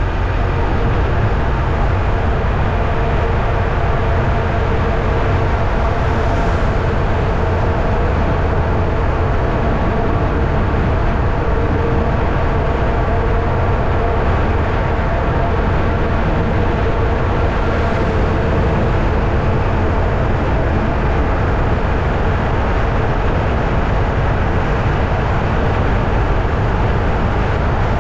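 Steady drone and rumble of a moving vehicle, with an even low rumble and a faint steady hum that barely change throughout.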